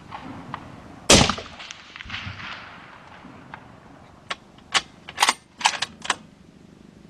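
A single shot from a suppressed .308 Marlin X7 bolt-action rifle about a second in, with a long echoing tail. About three seconds later comes a quick run of six or so sharp clicks.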